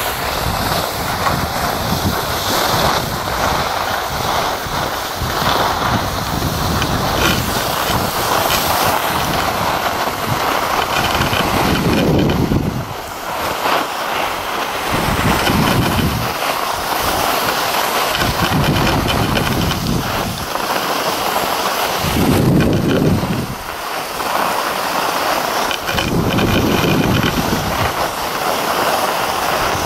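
Wind buffeting the microphone while skiing downhill, mixed with the hiss and scrape of skis on packed snow; the low rumble swells and fades every few seconds.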